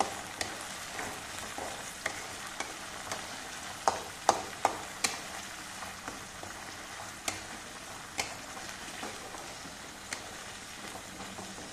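Onion and green chilli paste sizzling in oil in a metal kadai, with a metal spatula clicking and scraping against the pan now and then as it is stirred.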